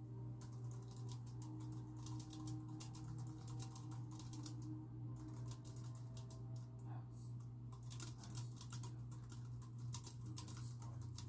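Typing on a computer keyboard: rapid keystroke clicks in quick runs with short pauses, over a steady low hum.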